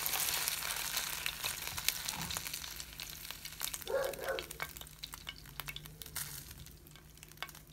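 Chicken pieces sizzling and crackling in hot oil in a frying pan, with a metal slotted skimmer scraping the pan as they are lifted out. The sizzle fades away as the pan empties.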